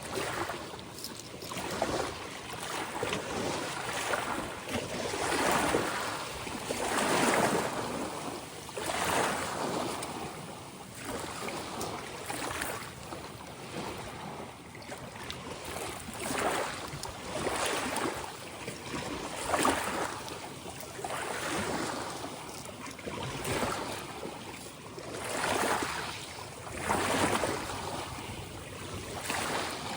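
Ocean waves breaking and washing in, each surge swelling and fading about every two seconds, one after another.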